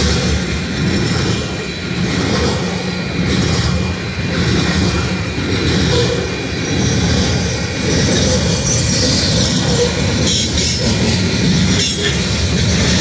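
Coal hopper cars of a long Union Pacific coal train rolling past at a grade crossing: a loud, steady rumble and clatter of steel wheels on the rails.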